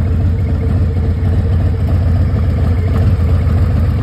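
Harley-Davidson Milwaukee-Eight 114 V-twin idling steadily through its Vance & Hines exhaust, a deep, even rapid pulsing.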